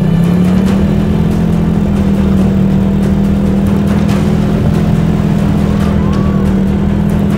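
ATV (quad bike) engine running steadily at speed while being driven across sand, a steady drone that climbs slightly in pitch in the first half second and then holds.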